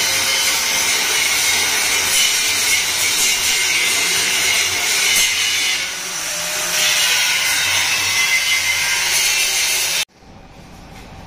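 Handheld angle grinder grinding a steel square-tube frame: a loud, steady, shrill grinding that cuts off suddenly about ten seconds in.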